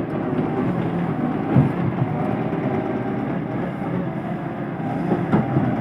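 Heavy diesel earthmoving machinery running steadily at site clearing, with a few short knocks.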